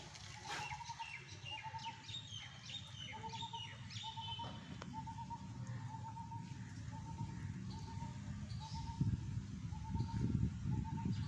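Birds calling: one bird repeats a short trilled call about once a second, while other birds give quick falling chirps in the first few seconds. A low rumbling noise grows louder near the end.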